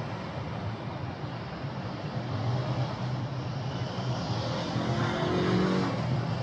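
A vehicle engine rumbling steadily over outdoor city noise, growing a little louder over the last couple of seconds.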